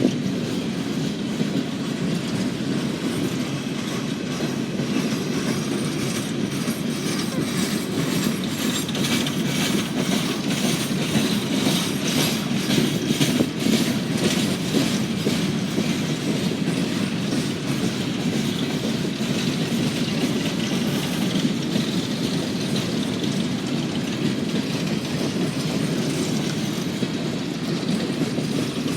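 CSX freight train's cars rolling past with a steady rumble, their wheels clicking rhythmically over the rail joints, the clicking strongest through the middle.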